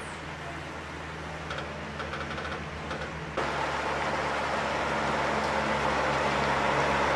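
Diesel engines of FAUN heavy-haulage ballast tractors running steadily at a low, even pitch. About a third of the way in, the sound jumps abruptly louder and stays there.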